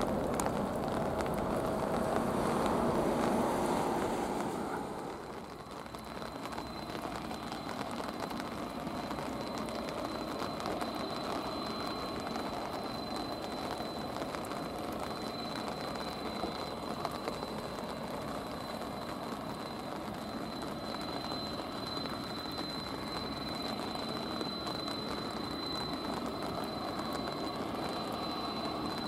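Airbus A350-900's Rolls-Royce Trent XWB engines at takeoff thrust as it climbs away, dying away about five seconds in. Then a Boeing 767-300F freighter taxiing with its jet engines near idle: a steady rumble with a thin, high, steady whine.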